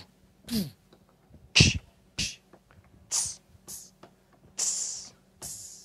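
A man beatboxing single percussive mouth sounds into a handheld microphone, one at a time with short gaps. There are about seven: low kick-like thumps, sharp clicks, and two longer hissing sounds near the end. They are being recorded as drum samples.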